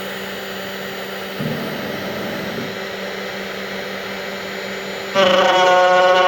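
CNC router running with a steady whirring noise and a low hum. About five seconds in, a louder, steady high-pitched whine sets in.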